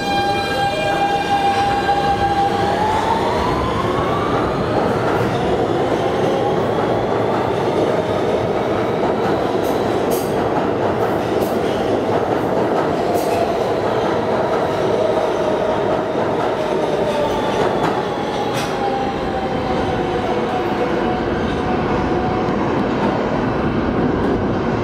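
R160 subway train with Siemens propulsion pulling out of the station: the traction motors give a steady tone, then rise in pitch about three seconds in as the train accelerates. Then the steady rumble of the cars rolling past, with scattered sharp clicks.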